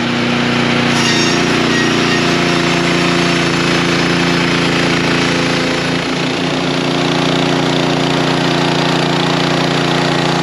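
Kohler gasoline engine of a portable band sawmill running steadily under load while the band blade saws a slab off a spruce log, with a brief wobble in the sound about six seconds in.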